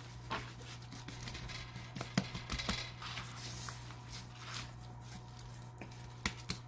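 Hands rubbing coarse salt into the skin of a raw whole duck on a plastic cutting board: soft rubbing and patting with scattered light taps and crackles, over a low steady hum.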